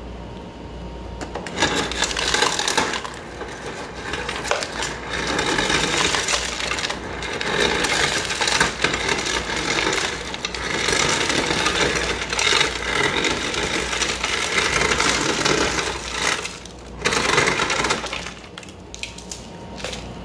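Refrigerator door dispenser running on crushed ice, with ice pieces clattering into a plastic cup for about fifteen seconds. It stops briefly near the end, then gives one short final burst.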